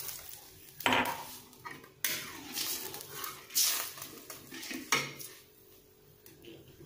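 A cooking utensil stirring in a pan of sautéed aromatics and water, scraping the pan and knocking against its rim sharply about a second, two seconds and five seconds in.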